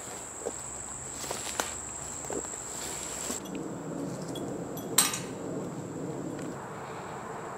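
Insects singing with a steady, high-pitched tone that drops in level a little over three seconds in. Footsteps crunch on leaf litter and twigs in the first couple of seconds, and a single sharp click about five seconds in is the loudest sound.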